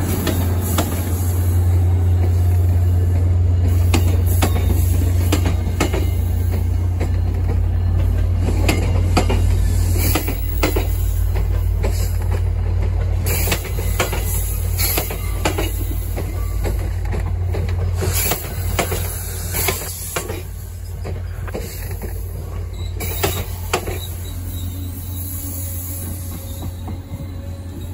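MBTA commuter rail train passing close by. The diesel locomotive's low engine rumble is strongest over the first ten seconds or so and then fades, while the coaches' wheels keep clicking and knocking over the rail joints until the cab car goes past near the end.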